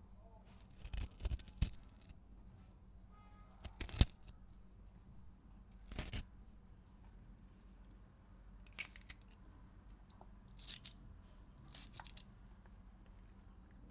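A pepper being cut with a knife: separate crisp slicing cuts, a quick cluster about a second in, the sharpest about four seconds in, then fainter cuts spaced a couple of seconds apart.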